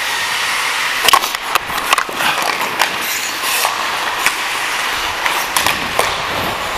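Hockey skate blades scraping and carving on rink ice, a steady rough hiss, broken by many sharp clicks and clacks of sticks on the ice and puck.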